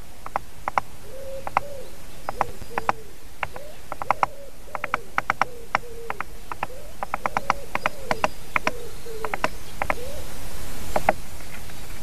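Juvenile great spotted woodpecker knocking its bill against a nest camera's lens: sharp taps, often in quick pairs or short runs of three or four, at irregular intervals, ending about a second before the end.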